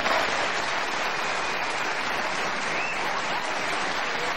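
Studio audience applauding steadily. The clapping breaks out all at once right after the introduction.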